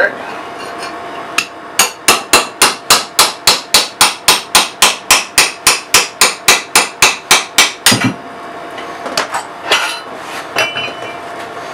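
Steel hammer striking fast and evenly, about four blows a second for some six seconds, driving the old dried-out handle out of the eye of an axe head. A few scattered knocks follow.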